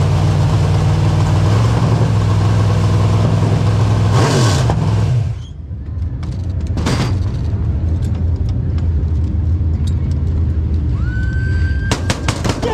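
Dirt late model race car's V8 engine running slowly, heard from inside the cockpit. About five seconds in, the engine note drops lower and quieter as the car comes to a stop. A sharp click follows a couple of seconds later, and a few clicks come near the end.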